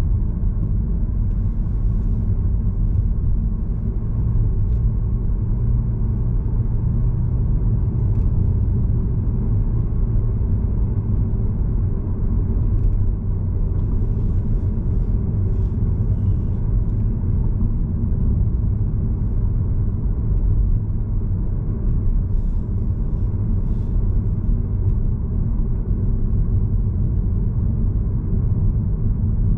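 Steady low rumble of a car driving at speed: road and tyre noise with the engine underneath, unchanging throughout.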